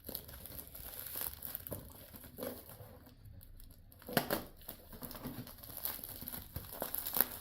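Packaging crinkling and tearing as a tightly wrapped parcel is cut open and unwrapped by hand: scattered rustles, with a sharper crackle about four seconds in.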